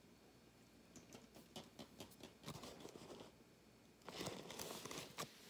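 Faint, light taps and clicks of plastic toy unicorn figurines' hooves on a concrete floor as they are walked along by hand, followed about four seconds in by a brief soft hiss.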